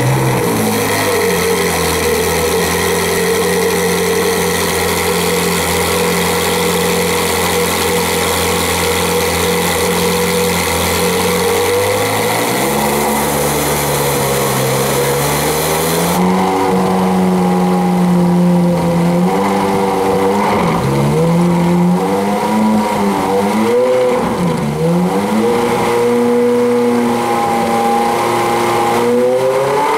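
Ferrari 458 Speciale's 4.5-litre V8 running just after start-up: it holds a steady idle for about twelve seconds, then it is blipped repeatedly, the pitch rising and falling with each rev.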